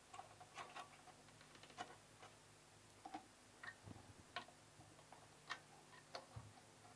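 Faint, irregular clicks and taps of metal multimeter probe tips being placed on solder joints and component leads of a TV circuit board, checking a resistor's value.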